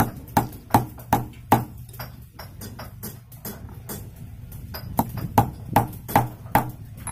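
Pliers tapping metal on an oil expeller's nut plate, knocking packed oil cake out of a bolt hole. The sharp taps come about two and a half a second: a run of four, a pause, then five more near the end, over a low steady hum.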